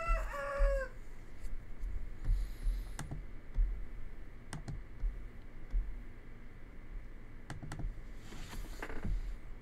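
Scattered clicks and taps on a computer keyboard and mouse, single clicks spaced a second or more apart.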